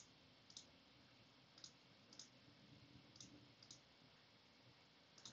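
Faint clicks of a computer mouse, coming in pairs about half a second apart, roughly every second and a half.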